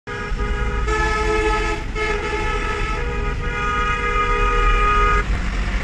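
Several vehicle horns honking in long, overlapping blasts of different pitches in heavy road traffic, over the low rumble of the car, heard from inside the car's cabin. The horns stop about five seconds in.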